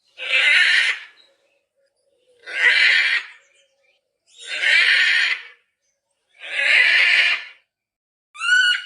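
Macaw squawking: four loud, harsh calls about a second long each, spaced about two seconds apart, then a shorter, clearer call near the end.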